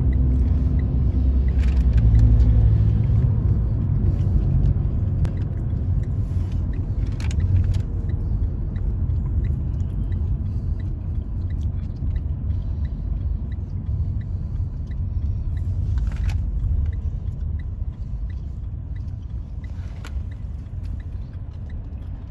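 Road and engine rumble inside a moving car's cabin, gradually getting quieter as the car slows, with faint regular ticking about two times a second and a few short knocks.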